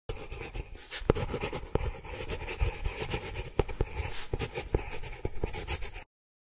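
Scribbling sound effect: a pen or marker writing fast, raspy strokes with many sharp ticks. It cuts off suddenly near the end.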